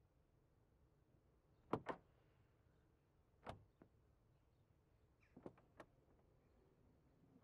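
Flamenco dancer's footwork strikes on a concrete floor, sharp and isolated in near silence: a quick double strike about two seconds in, a single one near the middle, and a few lighter ones later.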